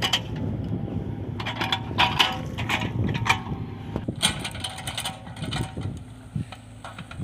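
Mini excavator's engine running steadily, with two spells of rapid metallic clattering from the working machine, about a second and a half in and again past four seconds.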